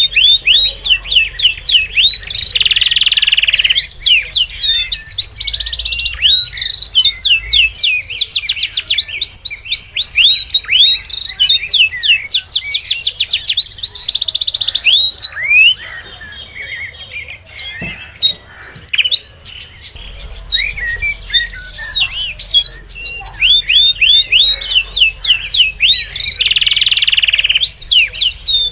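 Several small birds chirping and trilling in quick, high notes, overlapping almost without pause, with a quieter lull a little past the middle.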